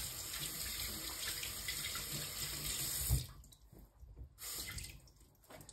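A kitchen tap running steadily for about three seconds, then turned off, followed about a second later by a second, brief run of water.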